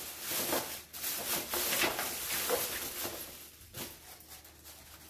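Paper rustling and crinkling as it is handled, busiest in the first three seconds or so, then dying down to a few light rustles.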